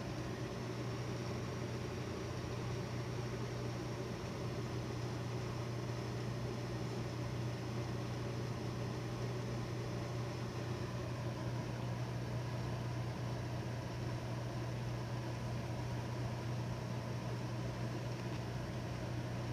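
A machine's engine running steadily: an unchanging low hum over a constant rushing noise.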